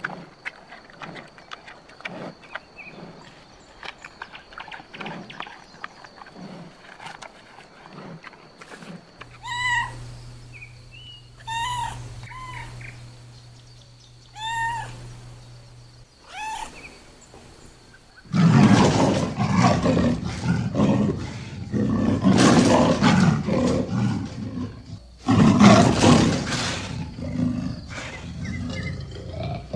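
Lion calls: a few short, high, arching mewing calls, then from about halfway on loud, rough roaring and growling in long bouts.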